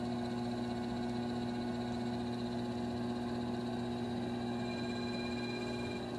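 Electric potter's wheel motor running at a steady speed, giving an even hum with a faint whine.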